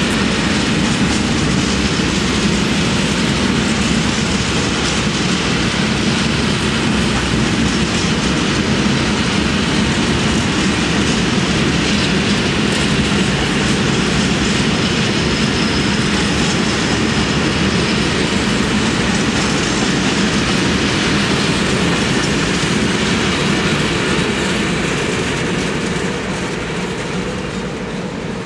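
Long freight train of covered sliding-wall wagons rolling past, wheels running steadily on the rails. The sound fades over the last few seconds as the end of the train goes by.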